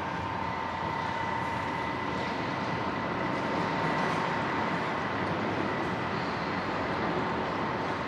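Train running on the tracks: a steady rumbling noise with a thin steady whine over it, growing a little louder toward the middle.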